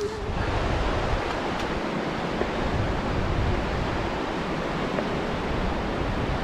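Loud, steady rushing of a fast mountain river, an even roar with no break.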